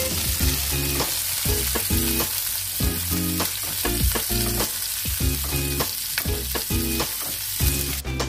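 Garlic cloves, green chilies and tomato sizzling in hot oil in a nonstick frying pan, with a spatula clicking and scraping against the pan as it is stirred. The sizzle cuts off near the end.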